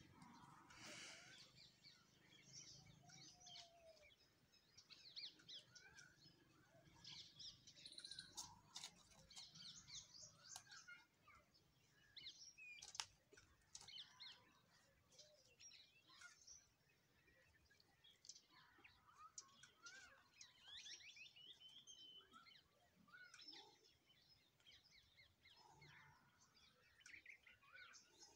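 Faint birdsong: many short chirps and calls from several small birds, scattered throughout, with a few faint clicks.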